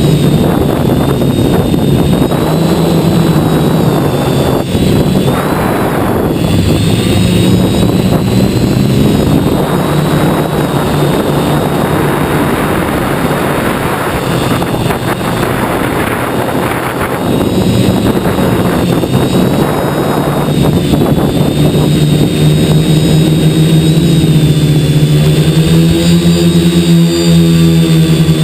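Quadcopter's four brushless 2212 motors and propellers buzzing steadily in flight, with stretches of wind rushing over the microphone. Near the end the motor pitch rises and falls as the throttle changes.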